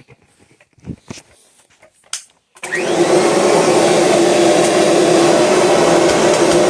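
A few faint clicks, then about two and a half seconds in the 1991 Kirby Generation 3 upright vacuum cleaner's motor switches on. It spins up with a quick rising whine and settles into a loud, steady run with a strong hum.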